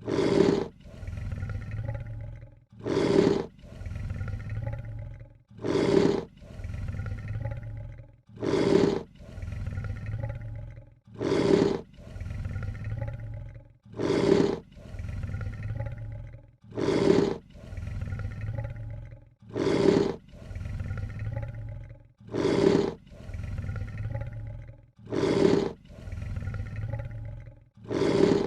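Lion hissing: a short, loud snarling hiss followed by a low growl, repeated identically about every three seconds as a looped sound effect.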